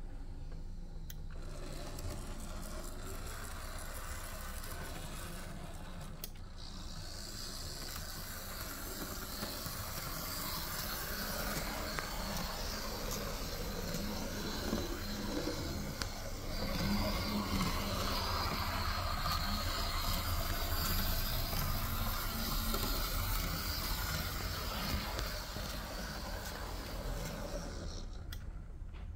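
Märklin Z-scale BR 89 0-6-0 steam tank locomotive running on its track: a steady mechanical whir from its small electric motor and wheels. It grows louder about halfway through.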